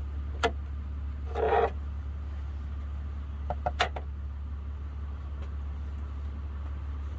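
Steady low hum, with a few light clicks and a brief scrape or rustle.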